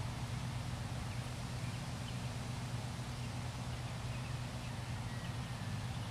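Steady low motor hum with a few faint, short high chirps.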